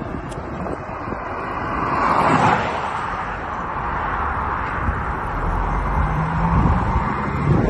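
Steady road and wind noise of a car travelling at highway speed, heard from inside the car, swelling for a moment about two seconds in.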